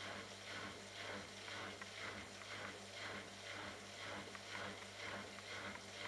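Drum of a Bosch Logixx WAS32461GB front-loading washing machine turning slowly with soaked pillows and water inside, giving a rhythmic wet swish about twice a second over a steady low hum.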